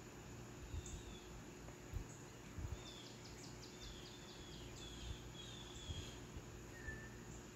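Quiet room tone with a steady low hum, faint short falling chirps like small birds, and a quick run of ticking about three seconds in. A few soft low thumps are scattered through it.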